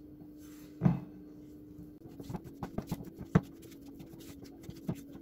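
Silicone spatula mixing cocoa powder and oil into biscuit dough in a glass bowl: irregular small scrapes, clicks and taps against the glass, the sharpest about three and a half seconds in. There is a short thump about a second in, and a low steady hum underneath.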